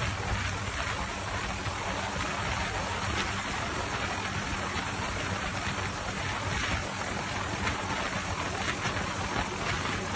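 Helicopter hovering close by: steady rotor and engine noise under a rushing, crackling wash of noise.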